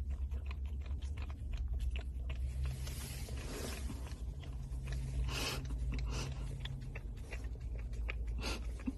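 A puppy licking and nosing inside a paper cup: many small wet clicks, with the cup scraping and rustling in a few short rushes. Under it runs the low, steady hum of a car idling.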